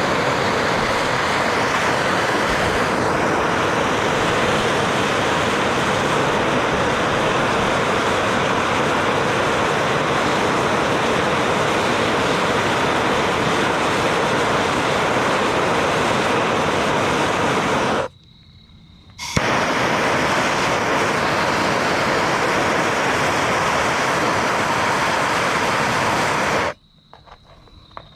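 Bernzomatic trigger-start handheld torch running with a steady hissing flame while heating aluminum for brazing. It shuts off about 18 s in, relights with a sharp click about a second later, then cuts off again near the end.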